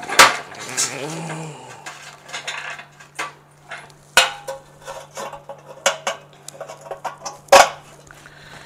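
Irregular metal knocks and clinks inside the stainless steel chamber of an autoclave sterilizer as the fitting of a new heating element is seated and tightened in the chamber base. The loudest knocks come right at the start and near the end.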